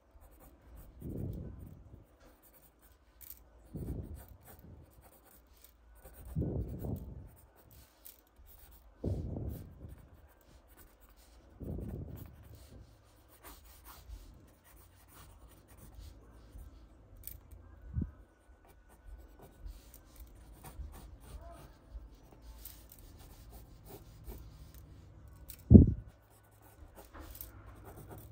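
Pencil sketching on paper with a Paper Mate Sharpwriter mechanical pencil: soft rubbing strokes come every two to three seconds at first, then quieter, steadier scratching follows. One sharp thump comes near the end.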